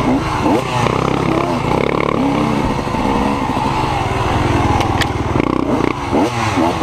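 Dirt bike engine running hard, its pitch rising and falling again and again as the throttle is opened and closed.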